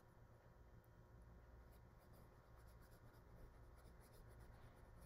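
Near silence: faint, irregular strokes of a paintbrush working acrylic paint, over a low steady hum.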